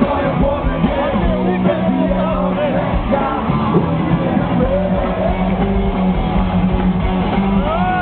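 Live rock band playing loudly with singing, heard from inside the crowd in front of the stage.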